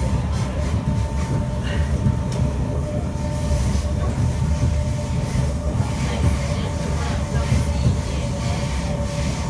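Kawasaki C151 metro train running at speed, heard from inside the passenger car: a steady low rumble of wheels on rail with a steady high tone over it.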